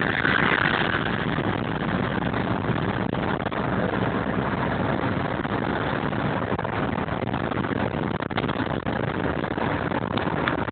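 Steady engine and road noise of a moving vehicle, with a brief louder, higher sound in the first second.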